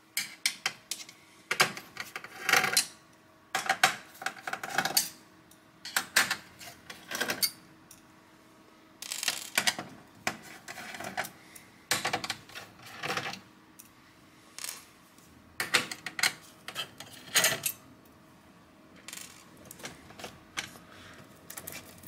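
Irregular light clicks, taps and rattles of hands handling cables and small parts against the sheet-metal chassis of an opened all-in-one PC, over a faint steady hum.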